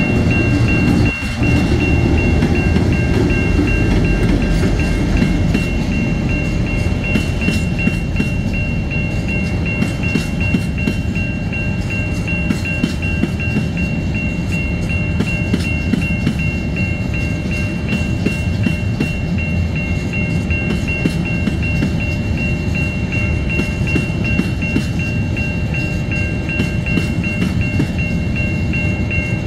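Empty coal hopper wagons rolling past with a steady heavy rumble and clickety-clack of wheels over the rail joints. Over it, a level-crossing warning bell rings on a steady high tone.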